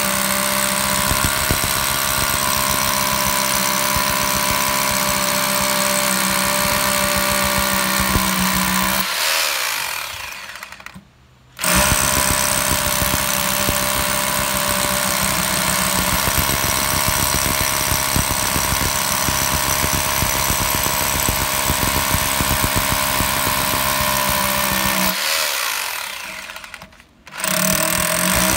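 Dong Cheng impact drill hammering a bit into concrete, its motor running steadily with rapid hammer blows. Twice the drill stops, winding down to quiet for about a second, then starts again at full speed: once about a third of the way in, once near the end.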